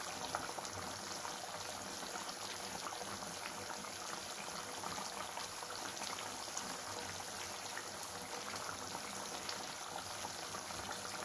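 Yogurt-based fish curry simmering in a pan on the hob, with a steady bubbling and fine crackling from the thick gravy.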